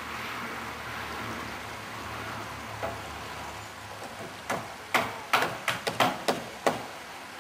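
A steady hiss with a low hum, then about halfway through about eight sharp knocks in quick, uneven succession over some two seconds.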